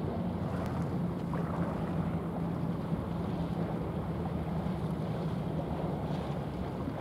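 Steady low drone of a small general cargo ship under way, mixed with the rushing wash of its bow wave and wind on the microphone.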